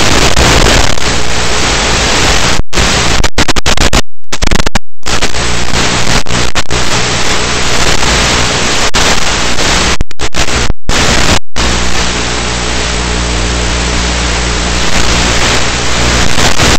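Loud, steady hiss of wind and static in the RC plane's onboard FPV audio, over the steady low hum of its electric motor. The sound cuts out suddenly to silence several times for a split second.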